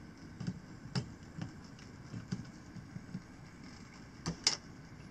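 N scale model trains running on the layout track: a low steady rumble with irregular small clicks of wheels crossing rail joints and turnouts. A sharper double click comes about four and a half seconds in.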